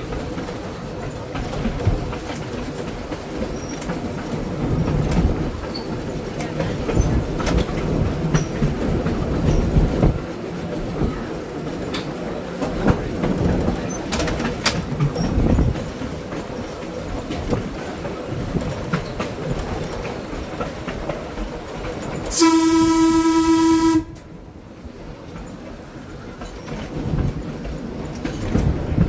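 1926 Wason-built electric trolley car running along the track: a steady rumble with scattered clicks of the wheels over rail joints. About three-quarters of the way through, its horn sounds once, a single steady tone lasting under two seconds, after which the running noise is quieter.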